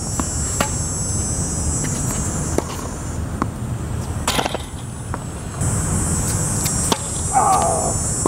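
Tennis ball knocks off rackets and bounces on a hard court: sharp single knocks spaced irregularly, one louder about four seconds in. Behind them runs a steady high drone that stops for a couple of seconds midway, over a low rumble.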